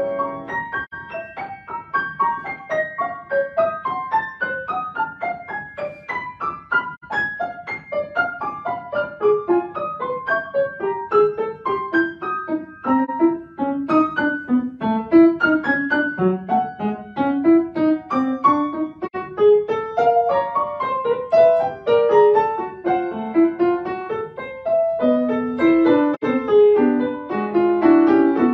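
Solo grand piano played live: a quick flowing stream of notes in lines that rise and fall. Heavier chords come in the lower notes near the end.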